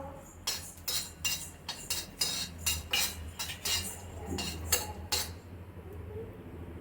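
Metal spoon clinking and scraping against a pan while cashews and raisins are stirred and fried in ghee: about a dozen irregular taps that stop about five seconds in.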